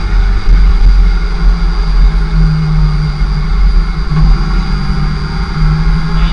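Kawasaki ZX-6R Ninja's inline-four engine running at low revs while the bike rolls at low speed, under heavy wind rumble on the bike-mounted microphone. A steady low engine note comes through twice, for about a second each time.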